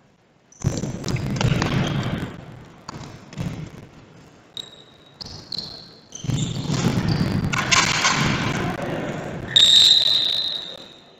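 Indoor futsal play: ball thuds and kicks on the court, with short high squeaks. Near the end comes a steady high tone about a second long, the loudest sound.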